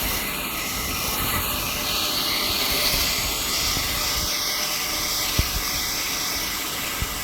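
Horizontal band sawmill running through a hard Sirish log: a steady, noisy hiss from the blade in the wood, with a couple of short knocks near the end.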